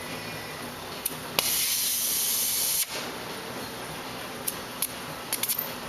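A short burst of gas hissing from a jeweler's soldering torch, lasting about a second and a half and cutting off sharply. A click comes just before it and a few light clicks follow.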